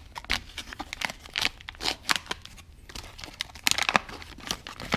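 MRE-style food pouch torn open by hand, then its crinkly plastic packaging pulled apart: a string of sharp rips and crackles.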